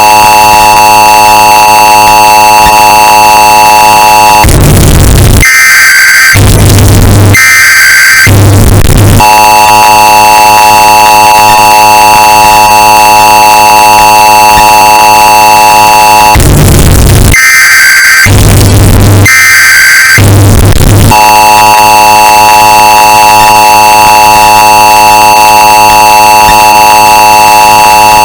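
Emergency Alert System alarm, bass-boosted and clipped into harsh distortion: the steady two-tone attention signal blares, and twice, about twelve seconds apart, it breaks into a few seconds of screeching SAME data bursts and distorted bass thumps.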